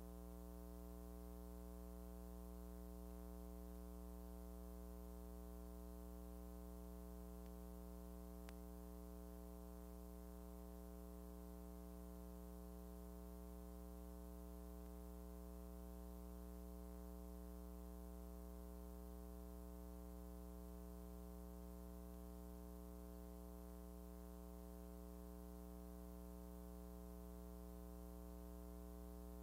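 Faint, steady electrical hum with a stack of overtones, the kind of mains hum left on the soundtrack of a silent film transfer, with one faint click about eight and a half seconds in.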